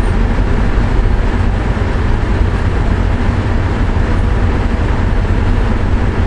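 Steady deep hum and rumble inside a VIA Rail passenger car standing at a station, its ventilation fans running on head-end power from the coupled locomotives.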